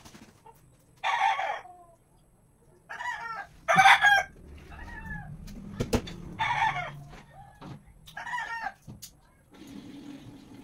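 Chickens calling in short bursts, about five calls a second or two apart. A single sharp click about six seconds in.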